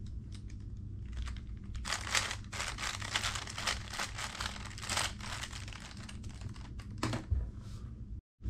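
A speedcube being turned quickly by hand: rapid runs of light plastic clicks and clacks as the layers are spun through an algorithm, busiest a couple of seconds in.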